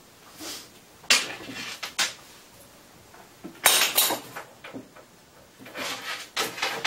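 Handling clatter of a spearfishing weight belt's metal buckle and swivel: a few sharp clicks and knocks, about one second and two seconds in, a cluster near four seconds and more near the end.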